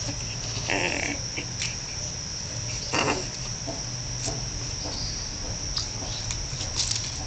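A steady high-pitched insect trill, like crickets, over a low hum, with short rustling noises about one second and three seconds in.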